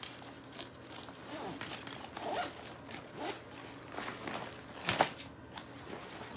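Thin nylon fabric of a packable backpack rustling and crumpling as it is folded up by hand, with a zipper pulled in short strokes. One sharp knock about five seconds in, the loudest sound.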